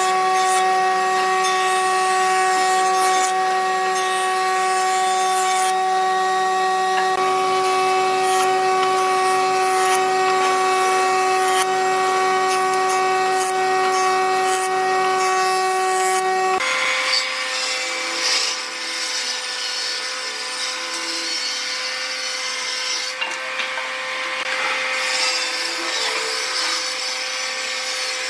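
Jointer running with a steady whine as a board is pushed across its cutterhead, planing the wood. About seventeen seconds in the sound changes abruptly to a table saw running, with a hissing rasp of wood being cut.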